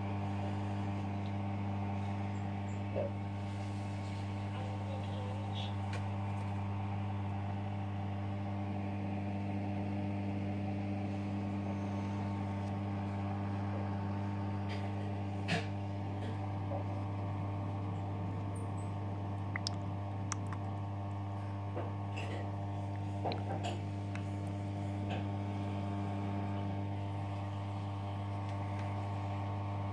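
Aquarium pump running with a steady electrical hum, with a few faint clicks scattered through it.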